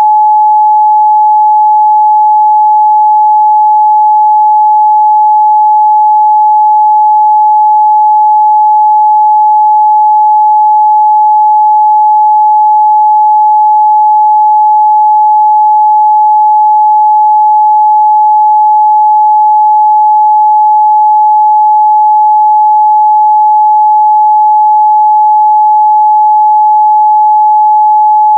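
A steady, loud 852 Hz sine-wave test tone, one pure pitch held unchanging.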